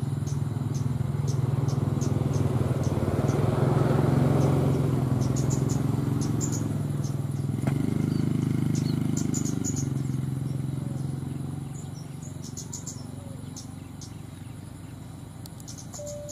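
A low engine hum swells to its loudest about four seconds in, changes pitch after a sharp click near eight seconds, and fades away after about ten seconds, with crickets chirping throughout.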